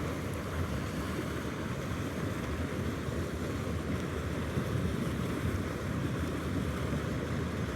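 Steady rushing of water pouring into a trout pond at its inlet, an even noise without breaks.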